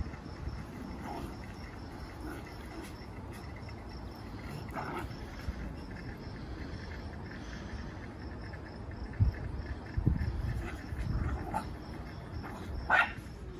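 Crickets chirping steadily in a high, even pulse, with a few brief low knocks and one short sharp sound near the end.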